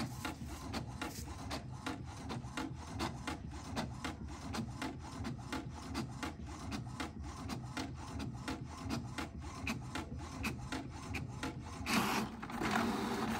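HP Ink Tank 319 inkjet printer running a continuous test print: its print head carriage and paper feed keep up a fast, even ticking of about four to five clicks a second. A louder rustling rush comes near the end.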